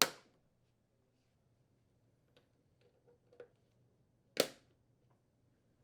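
Two plastic screw hole plugs snapping into a microwave's inner door panel: two sharp clicks about four seconds apart, with a few fainter clicks of handling between them.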